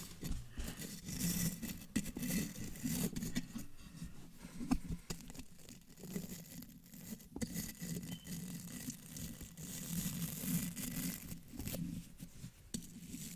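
ASMR microphone brushing and scratching layered with wet mouth sounds, very close to the mic. It is an irregular scratchy rustle with scattered small clicks.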